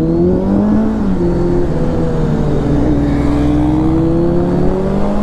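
Kawasaki Z900's inline-four engine pulling hard under acceleration, its pitch climbing and dropping sharply twice as it shifts up through the gears, with steady wind rush.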